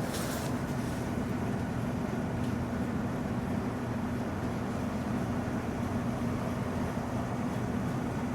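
A steady machine hum with a constant low tone, unchanging throughout, and a faint click about half a second in.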